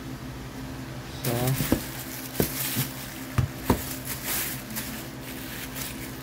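Plastic wrapping crinkling and rustling as a dumbbell bar is handled and pulled out of its cardboard box, with four sharp knocks of the bar against the box and parts.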